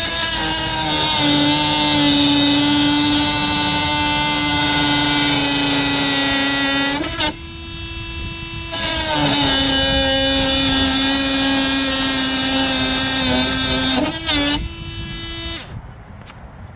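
Milwaukee M12 Fuel oscillating multi-tool with a 1 3/4-inch wood blade plunge-cutting pine 2x4, its pitch dropping under load as the motor slows. It cuts for about seven seconds, runs free for a moment, cuts again for about five seconds, runs free briefly, then stops near the end.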